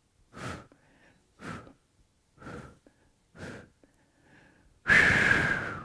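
A man breathing hard from exercise during calf raises, with a short, sharp exhale about once a second, then a longer, louder exhale near the end.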